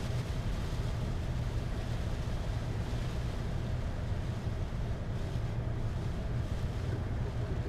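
Steady low rumble inside a Boeing 747-8's flight deck while taxiing, from the running engines and cockpit airflow, with engine number 3 shut down.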